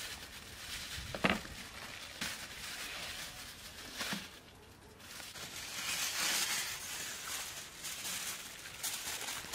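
Hands mixing raw chicken pieces on a wooden board: wet squishing and rustling, louder in the second half, with a few short knocks early on.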